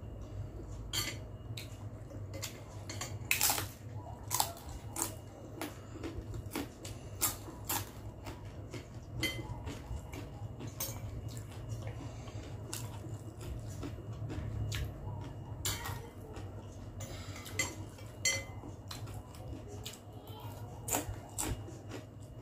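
A metal spoon and fork clinking and scraping against a glass bowl while noodles are eaten: irregular sharp clicks, some louder than others, over a low steady hum.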